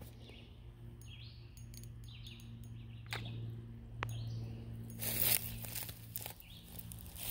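A bird calls repeatedly in the background with short high notes about a second apart, over a steady low hum. Two faint clicks come about three and four seconds in, and a brief rustle a little after five seconds is the loudest sound.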